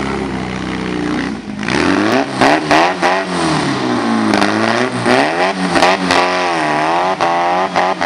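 Off-road trial buggy's engine revving hard as it climbs over rocks, its pitch rising and falling again and again, with several sharp cracks among the revs. For the first couple of seconds it runs steadily at a lower pitch.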